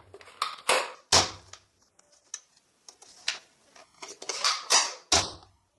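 Irregular sharp clicks and clacks of plastic toy guns being handled, about a dozen of them with short gaps between.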